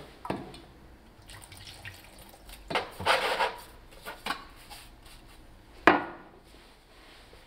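A paintbrush scrubbing a metal car-jack column in a plastic tray of liquid, with splashing, plus a few knocks of metal and a tin against the tray and wooden bench; the sharpest knock comes about six seconds in.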